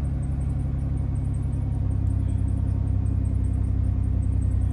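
2012 Dodge Grand Caravan's 3.6-litre V6 idling steadily, just after a hard start; the owner has noted a belt squeak from the engine.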